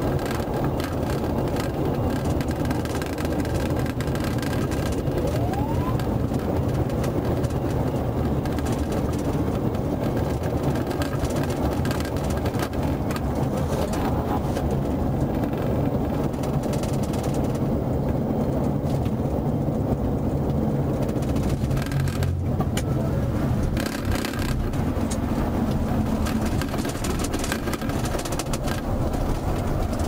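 Steady engine and tyre noise inside a patrol car cruising at highway speed, with a low hum running under a wide rush of road noise.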